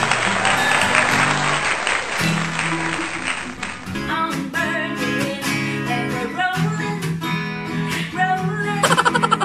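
Acoustic guitar strummed with a woman singing along. For the first four seconds a dense hiss lies over the music; then the sound changes abruptly to clear guitar chords and singing, with stronger strumming near the end.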